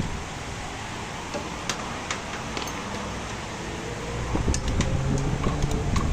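A few light, sharp metal clicks and taps from tools and engine parts being handled, over a steady workshop background hum.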